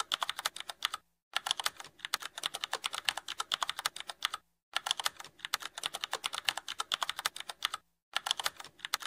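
Rapid keyboard typing clicks, about ten keystrokes a second, stopping briefly three times. This is a typing sound effect that accompanies text being typed out on screen.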